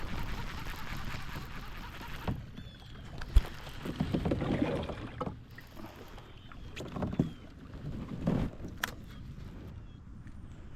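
Water splashing and knocking against a kayak as a hooked bass is fought and brought in, with irregular splashes and a couple of sharp knocks.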